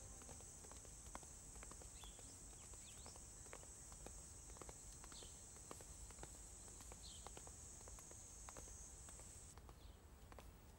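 Faint footsteps at about two steps a second, with a few short bird chirps and a steady faint high hiss that stops near the end.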